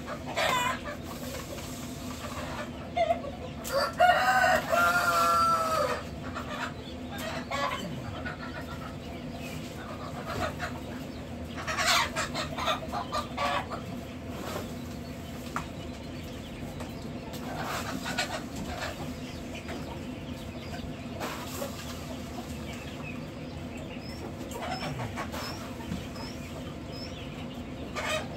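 Chickens clucking, with a rooster crowing for about two seconds near the start, over a steady hum of hatchery equipment. Scattered knocks and scraping come from cleaning the bottom of the brooder pens, and a few short high peeps sound near the end.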